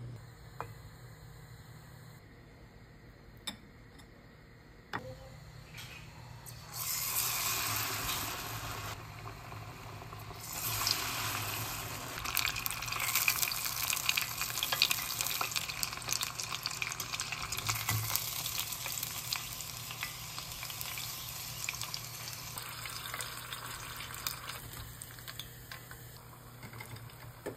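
Beer-battered chicken nuggets deep-frying in hot oil: a dense, crackling sizzle that comes in several seconds in, is loudest through the middle, then eases off near the end.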